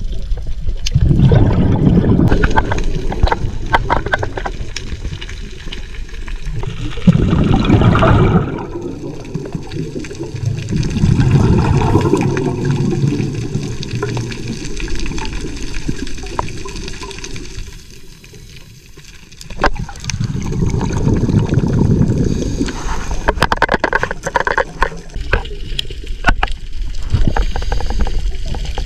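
Scuba diver's breathing heard underwater: exhaled bubbles gurgle out of the regulator about four times, each lasting around two seconds and several seconds apart, over a steady underwater crackle with scattered clicks.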